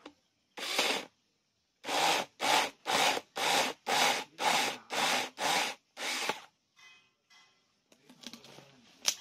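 Cordless 21-volt one-hand mini chainsaw run in short trigger bursts, about two a second for some five seconds, while cutting into a log. Near the end, light rustling and one sharp click.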